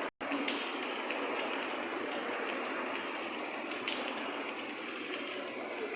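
Rain falling steadily: an even, dense hiss, broken by a momentary gap just at the start.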